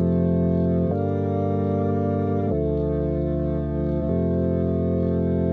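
Music: sustained organ chords, each held for about a second and a half before changing to the next.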